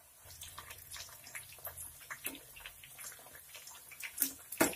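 Layered paratha deep-frying in hot oil, crackling and popping steadily as a slotted spoon moves it in the pan. Two sharp knocks near the end, the spoon striking the pan.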